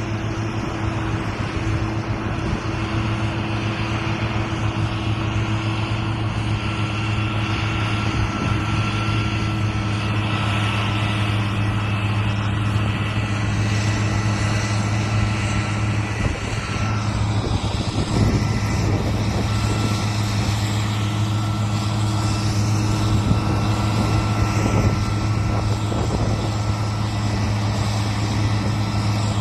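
Combine harvester running steadily during soybean harvest: a constant engine drone with a higher machinery whine that shifts slightly past the middle.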